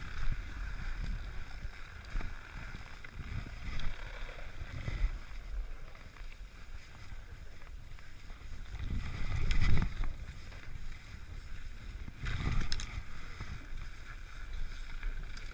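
Skis sliding and scraping over packed snow, with wind rumbling on the microphone; two louder surges, the bigger one a little past the middle and another shortly after.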